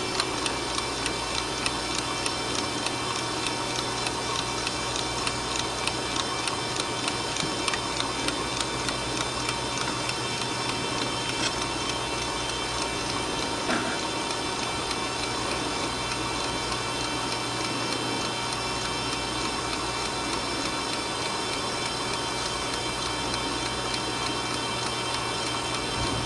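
Westclox wind-up alarm clock ticking in an even rhythm over a continuous mechanical buzz; the ticks fade under the buzz about ten seconds in.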